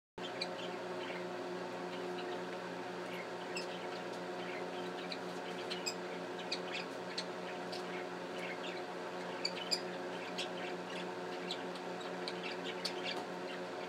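Pet budgerigars (parakeets) chirping in short, scattered calls over a steady background hum.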